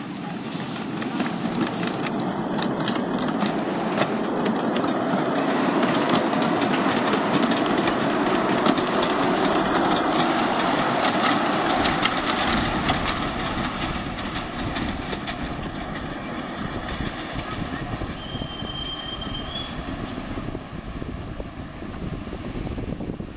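Live-steam 5-inch-gauge miniature locomotive chuffing as it pulls away, its exhaust beats quickening until they run together, then fading. A short, high whistle sounds about three-quarters of the way through.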